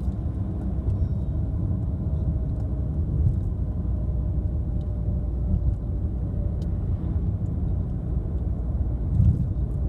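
A car driving along a road, a steady low rumble of engine and tyres.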